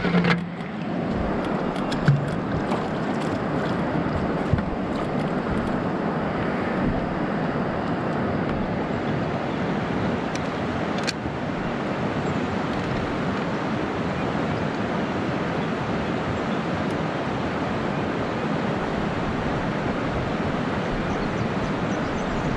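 Steady rushing of river water running over shallow riffles, with a few knocks in the first five seconds and one more about eleven seconds in.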